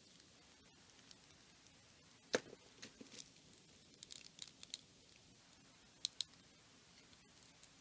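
Small plastic clicks and taps of an action figure's parts being handled and pressed together: one sharp click about two and a half seconds in, a run of light clicks around four seconds, and a quick double click near six seconds.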